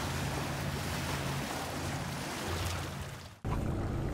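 Lake waves washing against a rocky breakwall, with wind on the microphone and a steady low hum underneath. The sound cuts out abruptly for a moment about three and a half seconds in, then the water and wind noise resumes.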